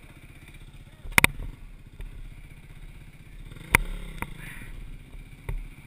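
Four-stroke single-cylinder dirt bike engine running at low speed, with several sharp knocks and clatter as the bike picks its way over rocks. The loudest is a double knock about a second in.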